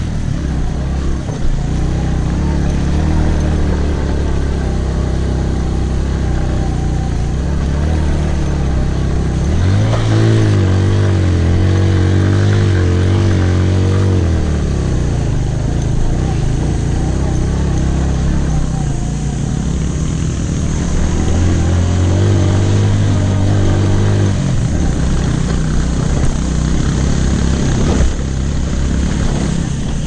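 Motorcycle engine pulling along a rough dirt track, with a rushing noise of wind and road over it. The engine note rises and holds for a few seconds about a third of the way in, and again about two-thirds through.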